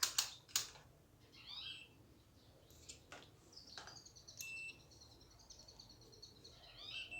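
A small bird chirping in rapid, high twittering runs, with a couple of brief clicks in the first second.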